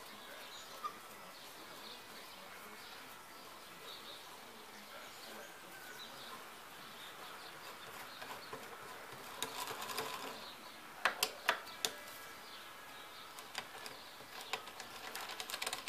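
Metallic clicks and clinks from a hand tool and screws as the two long screws holding a car starter motor's field housing are undone and pulled out: a short scrape about ten seconds in, a few sharp clicks just after, and more light clicking and rattling near the end, over low steady background noise.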